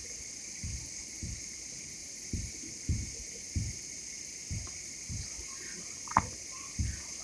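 Marker drawing on a whiteboard: soft, irregular low knocks as the strokes are made, with a sharper tap a little after six seconds, over a steady faint hiss.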